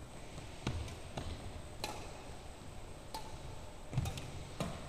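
Badminton rally: rackets striking the shuttlecock, about six sharp, irregularly spaced hits, with footfalls thudding on the wooden court floor.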